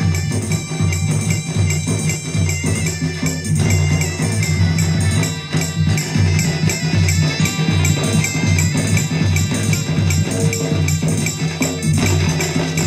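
Loud live folk music for a dance: a steady rhythmic drum beat with jingling, tambourine-like percussion and a high wavering melody line above it.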